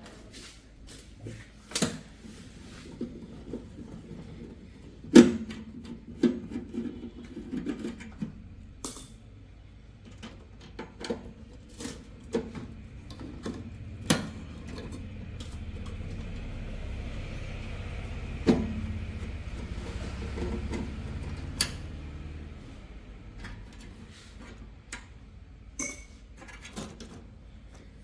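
Tools and metal parts of a microwave oven being handled while its magnetron is taken out: a string of sharp clicks, taps and knocks, with a steady low hum for several seconds in the middle.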